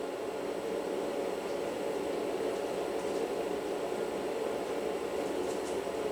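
Steady whirring noise like a fan or air conditioner, with a few faint light clicks near the end.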